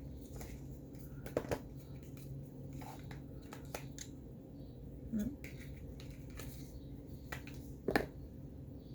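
Scattered small clicks and taps of plastic lipstick tubes and packaging being handled and sorted, the loudest near the end, over a steady low room hum.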